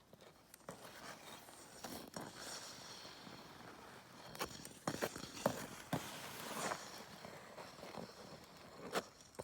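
Ice skate blades scraping and clicking on pond ice in irregular strides, with a few sharper knocks about halfway through and near the end.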